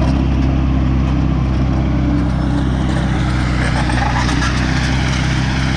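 Caterpillar D5 wide track bulldozer's diesel engine running steadily.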